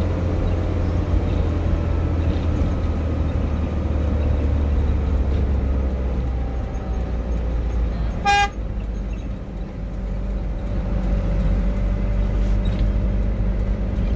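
A heavy vehicle's engine running steadily, heard from inside the cab. A single short horn honk a little over eight seconds in is the loudest sound.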